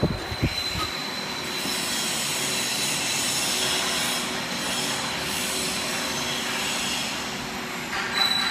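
Straight-seam welding machine running, a steady hiss with a thin high whine throughout, after a few low thuds in the first second.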